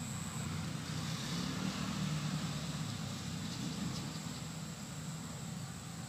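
Low, steady rumble of distant road traffic, swelling slightly about one to three seconds in, with a faint hiss above it.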